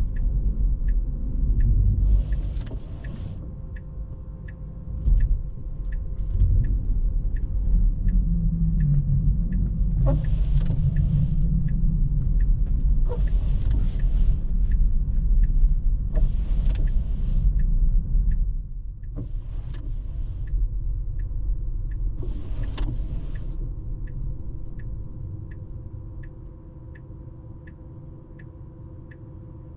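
Inside a Tesla driving through snow: a steady low road-and-tyre rumble, with the turn signal ticking evenly at about one and a half ticks a second. A swishing sweep comes every three seconds or so, typical of the windscreen wipers in a snowstorm. The rumble eases off in the last few seconds.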